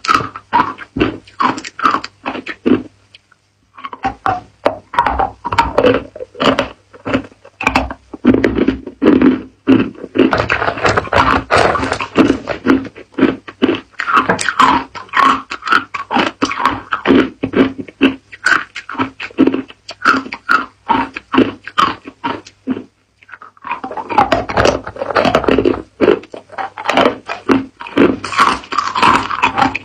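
Close-miked biting and crunching of hard ice cubes with the teeth: a rapid, irregular run of sharp cracks and crunches, pausing briefly twice.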